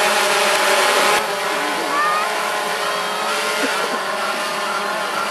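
DJI Phantom 2 quadcopter flying close by, its four propellers buzzing in a steady, many-toned whine. About a second in, the hiss above the whine drops away suddenly.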